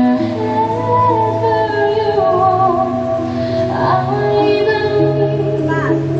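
Music with a woman singing a wavering melody over held bass notes, played for an exercise routine.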